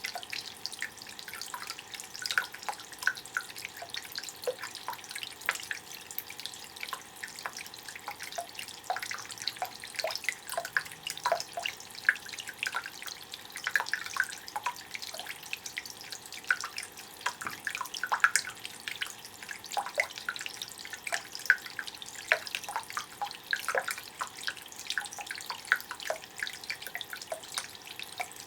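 Tabletop limestone rock fountain running: water trickling and dripping down the stone into a marble basin, a steady irregular patter of small splashes.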